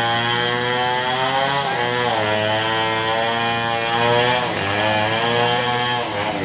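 Chainsaw engine running at high revs, its pitch sagging and recovering twice, about two and four and a half seconds in, as the chain takes load in the cut.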